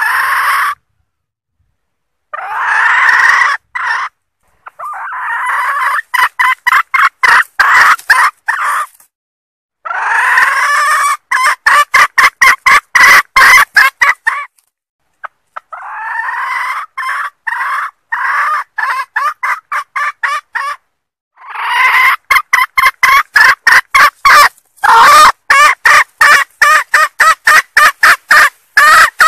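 Junglefowl hen calling in repeated cackling bouts. Each bout is a few seconds long and breaks into quick, evenly repeated clucks, with short silences between bouts. It is the hen's call asking for mating, used as a lure for wild junglefowl.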